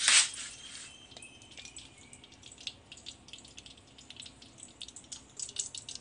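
Palm oil heating in a saucepan, crackling with scattered small pops that grow busier near the end, after a short hiss at the start.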